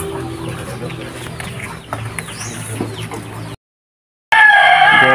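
Chickens: faint clucking over a low hum, then about four seconds in a loud drawn-out crow from a rooster.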